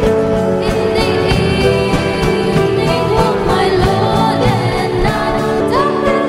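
A Christian hymn sung with instrumental accompaniment.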